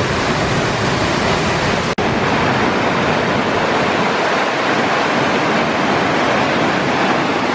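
Loud, steady rush of a large waterfall, with a split-second break about two seconds in.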